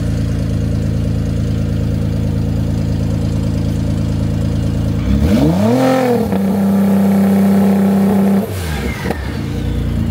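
Car engine idling steadily, then about five seconds in it is revved up and back down and held at a higher steady speed for about two seconds, before dropping and climbing again near the end.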